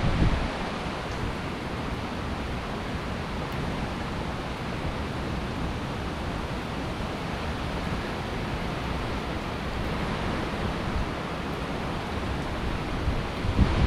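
Steady rush of hurricane wind and rain, with gusts buffeting the microphone at the start and again near the end.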